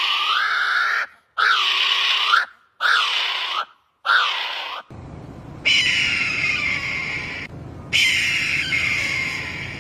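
Loud bird calls: four harsh calls of about a second each with short gaps, then a different bird gives two longer calls that fall in pitch.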